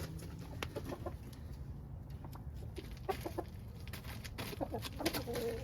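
Rhode Island Red chickens clucking in short bursts, mostly in the second half, over a low steady rumble.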